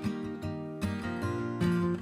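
Background music led by a strummed acoustic guitar, with a regular rhythm of chords.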